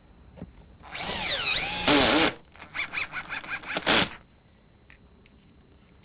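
Cordless drill driving a screw into a plastic dryer vent canister: the motor whines for about a second and a half, its pitch rising and falling, then runs in short pulses, about six a second, as the screw seats against the drill's stop.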